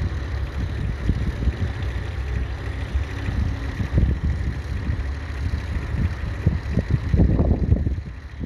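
The Ferguson TEF20's 2.1-litre four-cylinder diesel engine running steadily as the tractor works with a two-furrow mounted plough, with wind buffeting the microphone.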